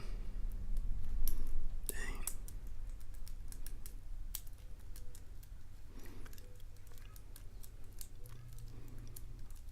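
Irregular small metallic clicks and scrapes of a lock pick and tension wrench working the pin stack of a challenge padlock during single-pin picking. A short murmur of voice about two seconds in.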